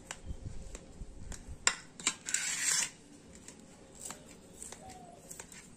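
Knife cutting a soft semolina dhokla in a stainless steel plate: scattered light clicks and taps of the blade against the plate, with a short scrape about two and a half seconds in.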